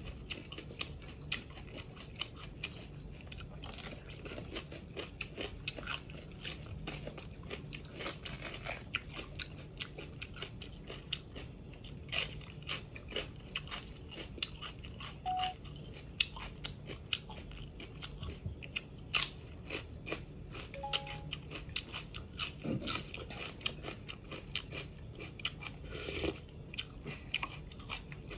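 Crunching and chewing of raw green bell pepper, a dense, uneven run of crisp crunches.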